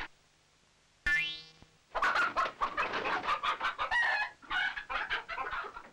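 About a second in, a short rising tone sounds; then, from about two seconds on, hens cluck and cackle in quick, busy bursts.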